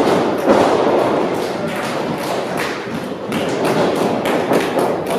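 A steady, irregular run of sharp claps and thuds, several a second, over a low crowd hubbub in a large hall.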